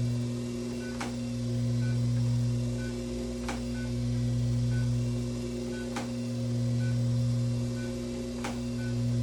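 Class IV therapy laser unit running during treatment: a steady low hum that swells and fades about every two and a half seconds, with a short high beep about once a second and a faint click every couple of seconds. The beeping is the unit's audible signal that the laser is emitting.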